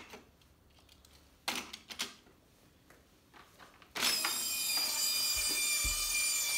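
A few plastic clicks and knocks as toy cars are set onto the playset's elevator. About four seconds in, a small electric motor switches on and runs with a steady high whine: the Hot Wheels Ultimate Garage's motorized elevator carrying the cars up the tower.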